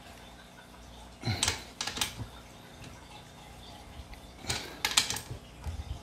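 Wrench on a digital torque adapter tightening a scooter cylinder-head nut: scattered metallic clicks and clinks from the wrench and socket as the handle is pulled and let back, in two clusters, one about a second in and one near the end.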